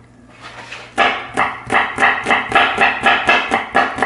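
Knife chopping garlic on a cutting board: quick, even strokes about three or four a second, starting about a second in.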